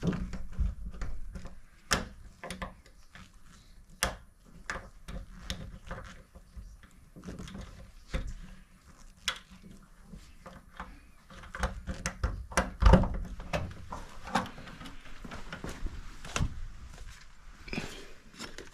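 Irregular clicks, taps and knocks of a locksmith's tools working inside a door lock to free it without drilling, with the loudest knock about two-thirds of the way through.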